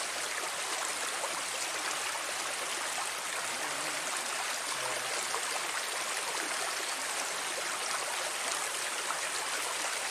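Water flowing steadily along a narrow, shallow ditch, a continuous rushing babble.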